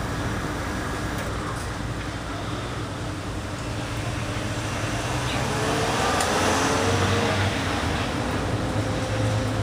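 Steady street traffic rumble, swelling as a vehicle passes and loudest about six to seven seconds in.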